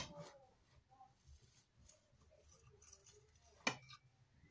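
Table knife clicking against a ceramic plate while cutting through a soft fried egg-and-potato snack: one sharp click at the start and another near the end, almost silent in between.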